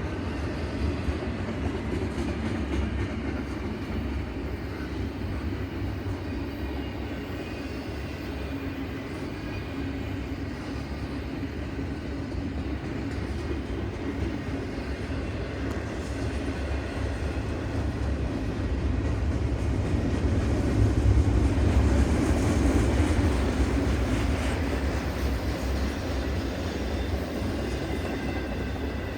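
Train rolling past: a steady rumble that grows louder about twenty seconds in, then eases off.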